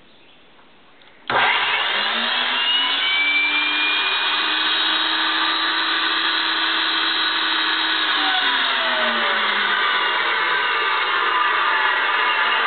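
Delta 10-inch table saw switched on about a second in, its 15-amp motor spinning the blade up to speed and then running steadily.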